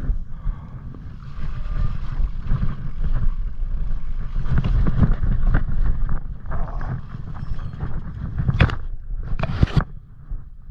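Wind buffeting the camera microphone with a low, steady rumble. Two sharp knocks come near the end, about a second apart.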